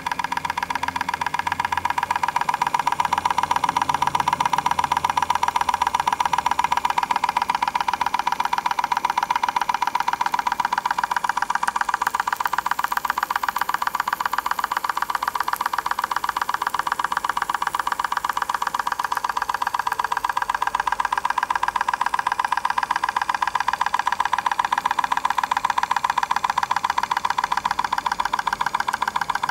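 Small hot air engine with a glass cylinder running steadily, its crank and linkage making a rapid, even mechanical ticking.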